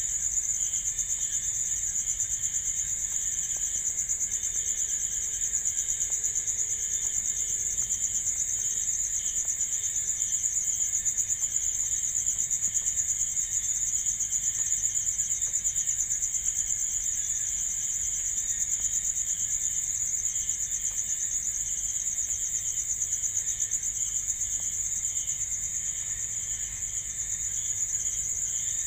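Night insects, crickets, trilling steadily in a continuous high-pitched chorus, with a second, lower insect trill pulsing rhythmically beneath it.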